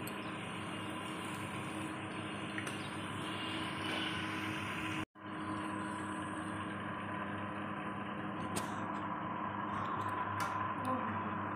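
Hot oil sizzling steadily as bottle-gourd kofta batter deep-fries in a steel kadai, over a steady low hum. The sound cuts out for an instant about five seconds in, then the sizzling goes on with a few light clicks.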